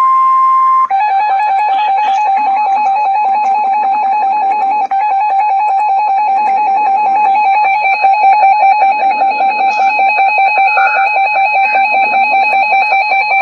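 Emergency alert attention tones: a steady high beep switches about a second in to a loud, rapidly warbling tone that alternates quickly between pitches and runs on unbroken. It is the attention signal that comes before the spoken emergency warning.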